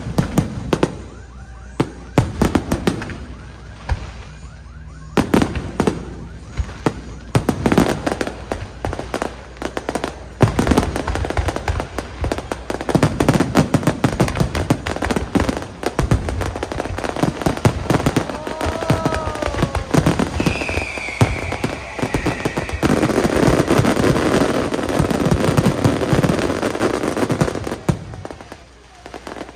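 Fireworks going off: separate loud bangs at first, then from about a third of the way in a dense, continuous crackling barrage. A few whistles glide down in pitch about two-thirds through, and the barrage dies away near the end.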